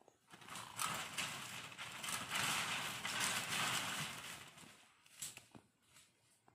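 Fallow deer crashing away through dry undergrowth: a rustle of leaves and snapping twigs with dull hoof thuds. It swells about half a second in and fades after about five seconds, with a few single cracks near the end.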